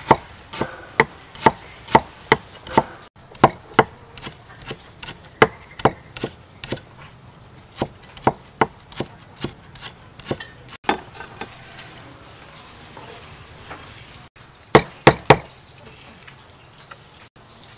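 Heavy cleaver chopping sliced lemongrass on a thick round wooden chopping block, a steady run of sharp knocks about two or three a second. After about eleven seconds the chopping eases off, then three quick hard chops come near the end.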